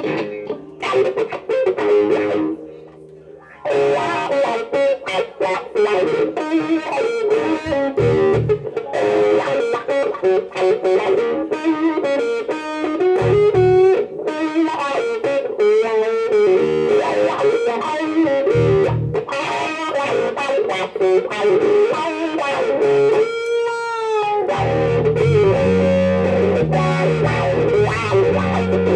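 Electric guitar and electric bass playing funky blues rock live. The guitar carries a lead line with a wavering held note about 23 seconds in, and the bass is heavier over the last few seconds.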